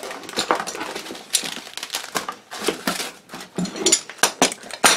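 Plastic packaging crinkling and rustling in quick irregular spurts, with cardboard scuffs, as packaged items are rummaged out of a cardboard shipping box.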